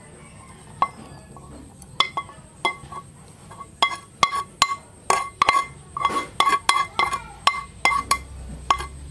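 Serving utensil clinking against a ceramic bowl and a pan while cooked shrimp is scooped from the pan into the bowl. A few separate clinks at first, then quicker repeated clinks from about halfway through, each with a short ring.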